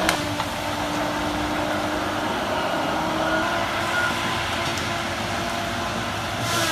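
Heavy machinery engine running steadily, with a sharp click right at the start.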